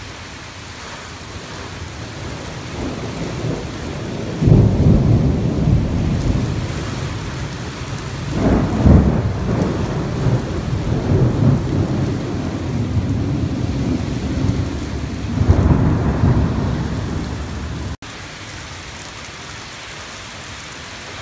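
Heavy rain falling steadily, with a long roll of thunder rumbling in about four seconds in, swelling several times and then stopping abruptly near the end while the rain goes on.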